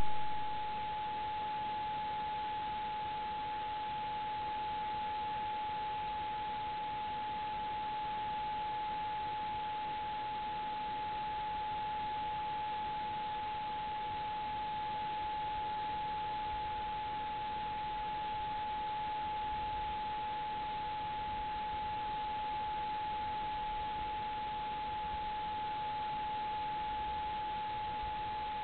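A trail camera's own electronics giving a steady high-pitched whine over constant hiss.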